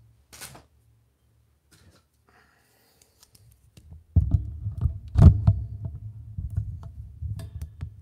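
Mostly quiet for about four seconds apart from a single click, then a run of knocks, clicks and low rumbling handling noises close to the microphone, loudest a little after five seconds.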